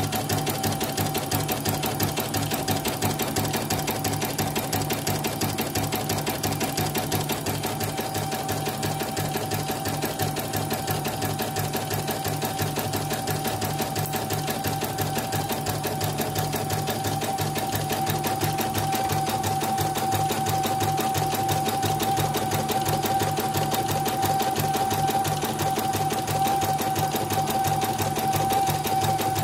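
CNY portable computerized embroidery machine stitching a design at a rapid, even pace, with a steady motor whine over the needle strokes. It is a test stitch-out after repair, and the stitching is running smoothly.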